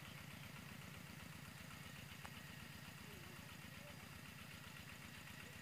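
Faint, steady running of a two-wheel walking tractor's single-cylinder diesel engine, an even rapid pulsing.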